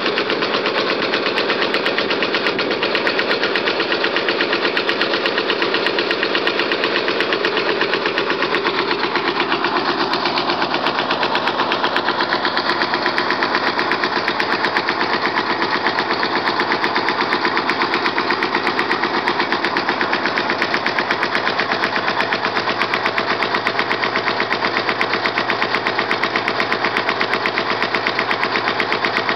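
Yanmar 1GM10 single-cylinder marine diesel running freshly started on a test stand, with an even, rapid beat of firing pulses. Its tone shifts slightly about ten seconds in as it settles.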